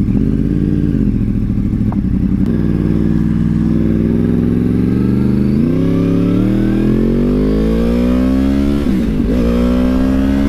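2014 Yamaha R1's crossplane inline-four engine pulling hard on the road, heard through a helmet microphone. Its pitch climbs steadily as the bike accelerates, then dips briefly near the end, as at an upshift.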